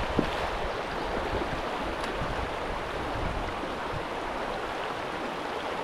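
Steady rush of a fast mountain river's flowing water.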